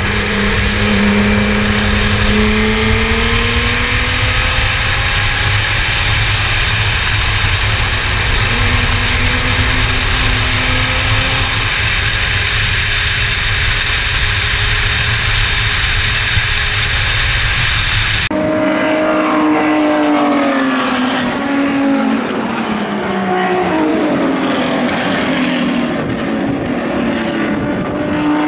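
Formula Yas 3000 single-seater race car's engine running at speed, buried at first in a heavy low rumble. About two-thirds of the way through, the sound changes abruptly to a clearer engine note whose pitch repeatedly rises and falls.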